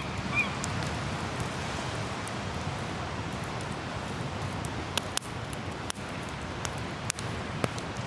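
Driftwood campfire crackling, with several sharp pops in the second half, over a steady wash of ocean surf. A bird's short repeated calls stop about half a second in.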